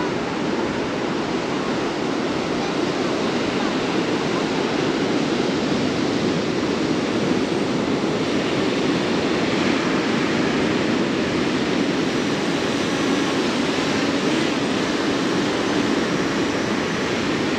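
Steady rush of ocean surf breaking on the beach, with wind on the microphone. In the second half the faint high whine of a small quadcopter drone's propellers comes in as it flies back close overhead.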